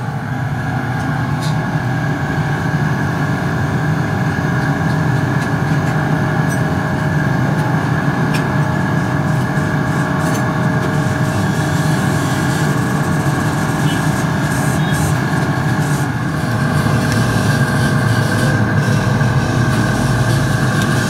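A steady machine drone with a constant hum that does not change, with a few light clicks and clanks on top.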